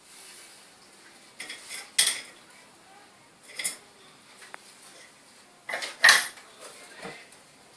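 Small metal objects clinking and clattering on a jeweller's bench: several sharp taps with brief ringing, the loudest about two and six seconds in.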